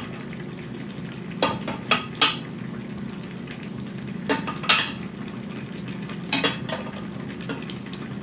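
A metal ladle scooping chickpeas from a stainless steel pot into a ceramic bowl: about seven sharp clinks of metal on pot and bowl at irregular intervals, over a steady low hum.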